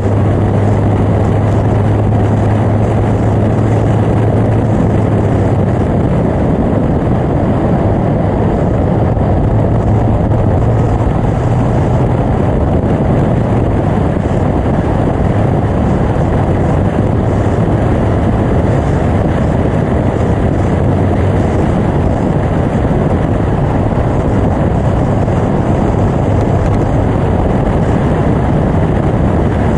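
Caterham Seven 360's 2.0-litre four-cylinder engine running hard at track speed, heard under a heavy rush of wind over the open cockpit. A steady engine note stands out for the first few seconds, then is mostly buried in the wind noise.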